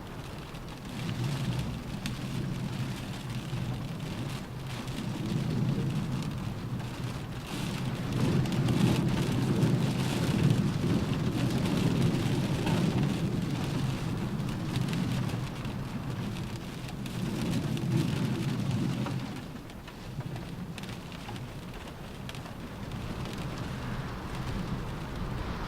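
Rain drumming steadily on a car roof, with a deep rumble that builds over several seconds, peaks, and dies away about twenty seconds in.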